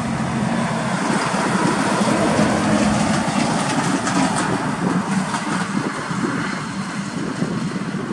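Volvo FH truck with a livestock trailer passing on the highway: diesel engine hum and tyre roar swell to a peak two or three seconds in, then slowly fade, with a short run of rattling clicks around the middle.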